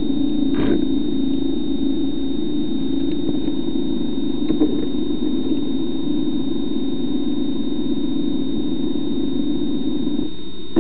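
Small electric thruster motors of an underwater ROV running, a steady hum with a constant thin high whine. There is a faint knock about a second in and another about four and a half seconds in.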